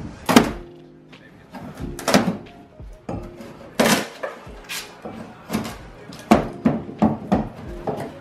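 Background music with a steady beat: sustained tones under sharp, regularly spaced drum hits.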